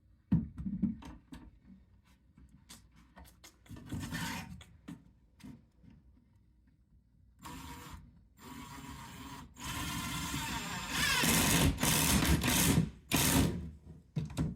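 Knocks and clicks of a wooden cabinet being handled, then a power drill running in several spurts as it drives screws into the cabinet.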